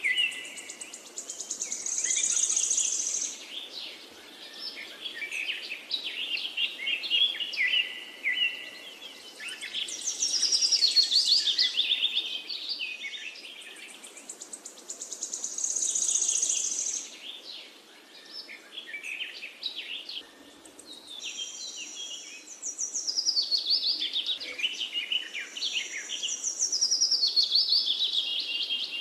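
Many small birds chirping and twittering together, in overlapping bursts of quick high trills that swell and fade every few seconds.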